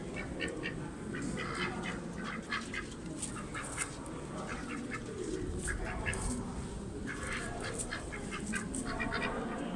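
White domestic ducks quacking repeatedly in short, quick runs of calls.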